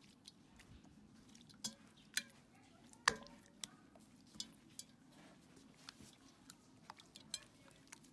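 Slime being handled, giving an irregular series of sharp clicks and pops, the loudest about three seconds in.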